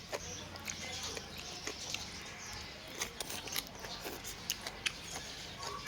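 A person eating noodle soup: slurping and chewing sounds, with many short, sharp clicks scattered throughout.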